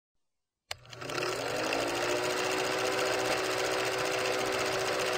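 Vintage film projector sound effect running behind a film countdown leader: a rapid, steady mechanical clatter with a steady hum, starting with a click just under a second in.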